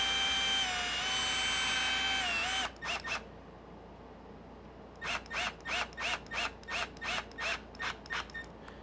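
Cordless drill-driver driving a very tight bolt: a steady motor whine that dips in pitch under load and stops a little under three seconds in, then a string of about ten short trigger bursts, roughly three a second, as the bolt is snugged down.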